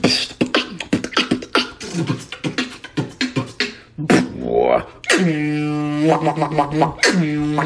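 Human beatboxing: a fast run of percussive mouth sounds, then from about five seconds in a long held pitched vocal note.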